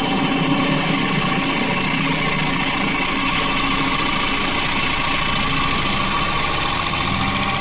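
Wood lathe running with a turning tool cutting into the spinning wood: a steady motor hum under a continuous cutting hiss.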